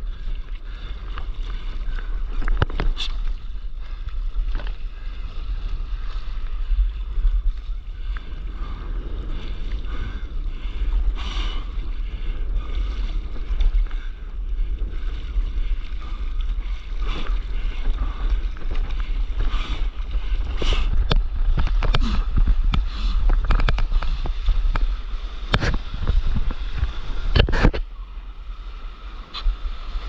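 Sea water sloshing and splashing around a stand-up paddleboard moving through choppy surf, with repeated sharp splashes and a constant low wind rumble on the microphone. The level dips briefly near the end.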